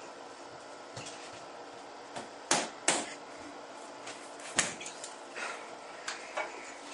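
Several sharp knocks and clatters of things being handled on a bathroom sink counter, the loudest two about two and a half and three seconds in and another a little later, with smaller taps between.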